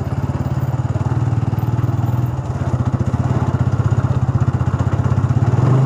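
Motorcycle engine running steadily while the bike is ridden slowly, at about 15 km/h, along a dirt trail, its firing pulses coming fast and even; it grows a little louder near the end.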